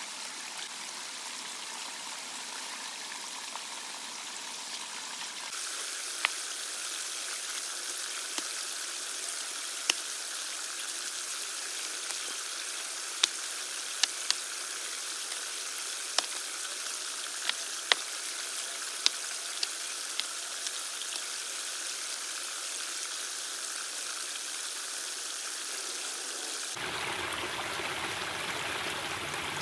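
Steady rush of running water, with a dozen or so sharp crackles scattered through the middle stretch. The background changes abruptly twice, about five seconds in and near the end.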